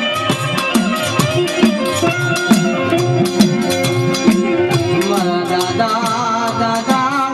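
Gujarati devotional garba music played loud, with quick, steady drum and rattle-like percussion under sustained melody lines; a wavering lead melody comes in about halfway through.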